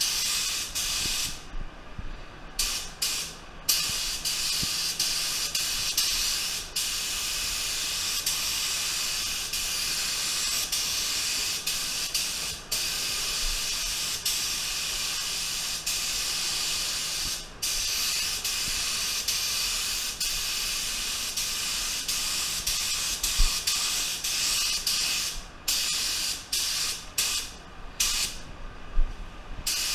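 Tuba TR300 HVLP spray gun with a 1.4 tip, hissing steadily as compressed air atomizes paint in long passes over a bumper cover. The hiss stops and restarts as the trigger is released: twice about two seconds in, once around the middle, and in several short breaks near the end.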